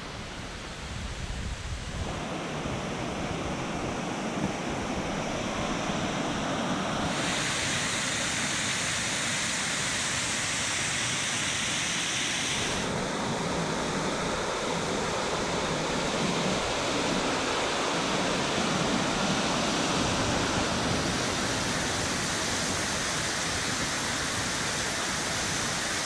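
Waterfall cascading down a rock face: a steady rush of falling water, changing in tone abruptly three times as the recording cuts between nearer and farther spots.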